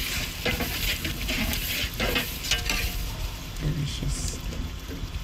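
Chopped chicken frying and sizzling in a pan while a spoon stirs and scrapes through it in a few irregular strokes that die down after about three seconds.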